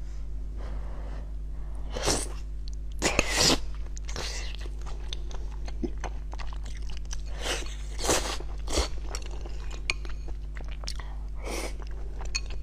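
Close-up wet chewing and mouth sounds of a person eating soft fatty braised pork, with louder bites and smacks at irregular moments over a steady low hum.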